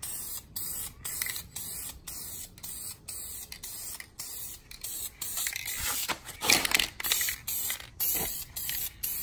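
Aerosol spray can of red leather dye hissing in short passes about twice a second, laying a light first coat on a leather car seat. A louder scuffing rustle comes about two-thirds of the way through.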